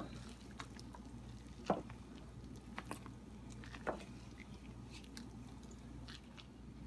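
A spatula folding mini chocolate chips into thick mascarpone-and-ricotta cannoli filling in a glass bowl: faint soft squishing, with a few light clicks of the spatula against the bowl.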